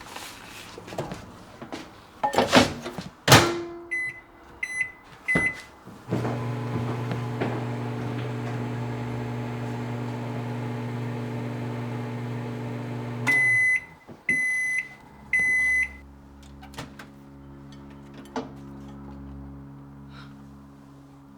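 Microwave oven in use: a few clicks and knocks, three short keypad beeps, then the oven hums steadily for about seven seconds and stops with three longer end-of-cycle beeps.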